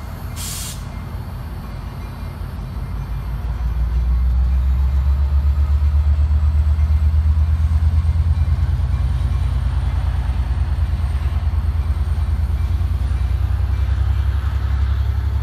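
Diesel locomotive of a commuter train accelerating away from a station: a low, throbbing engine note that climbs to a loud, steady run about three to four seconds in as the engine throttles up. A short, sharp hiss of air sounds about half a second in.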